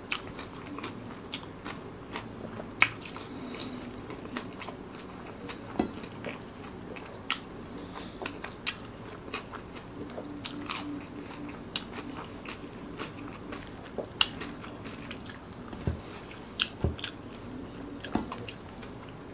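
Close-miked chewing and mouth sounds of a person eating rice and side dishes by hand, with many scattered sharp wet clicks and smacks. There are two soft low thuds near the end.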